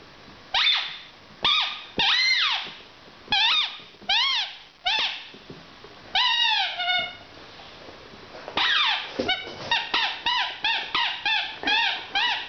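A squeaky dog toy shaped like a burger being squeezed again and again, giving high rising-and-falling squeaks. They come singly at first, then from about two-thirds of the way in a quick run of about three a second.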